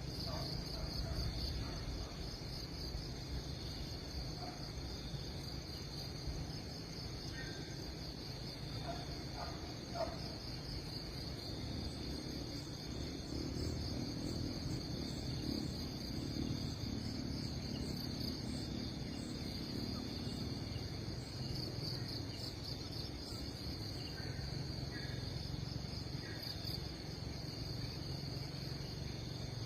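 Steady chorus of insects, a continuous high-pitched trill, over a low rumble.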